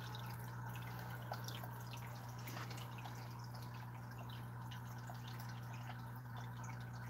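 Faint aquarium water sounds: small drips and trickles over a steady low electrical hum from the fish-room equipment.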